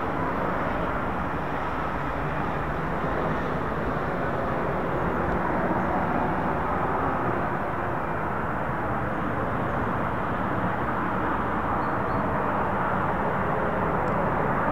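F-35B jet in a slow short-takeoff/vertical-landing approach: steady jet engine noise that grows slightly louder near the end as it comes closer.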